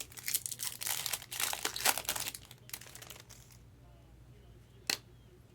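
Plastic and foil trading-card packaging crinkling and tearing as it is opened, in a dense rustle over the first three seconds or so. A single sharp click follows near the end.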